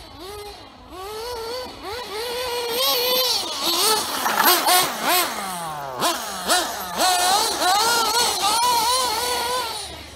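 RC buggy's motor revving up and down as it drives over dirt, its pitch rising and falling repeatedly, with a steep drop in pitch about six seconds in.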